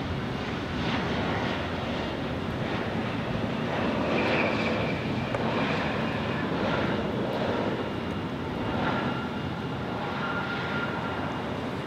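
An Embraer ERJ-195's turbofan engines running as the jet lands: steady jet noise that swells and eases slowly in loudness, with a faint high whine.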